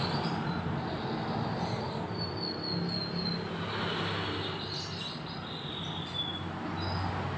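A steady low mechanical hum, with a few faint high wavering bird chirps about two seconds in and again around four to six seconds.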